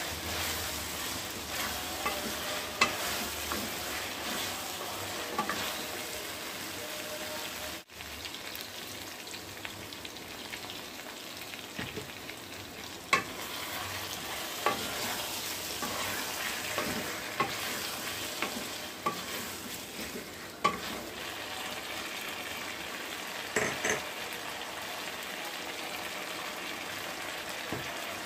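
Chopped vegetables and mutton sizzling in oil in a kadai, stirred with a wooden spatula that knocks against the pan now and then.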